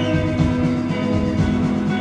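Post-rock band playing live: layered, sustained electric guitar notes over bass and a steady drum beat.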